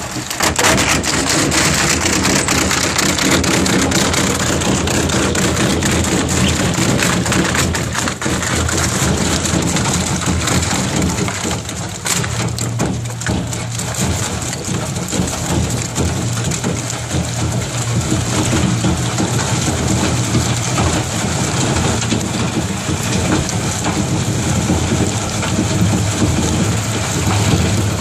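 Zeno wood grinder shredding a wooden pallet: the machine runs steadily under load with a low hum, while the rotor breaks the boards into chips in a dense, continuous crackle of splintering wood.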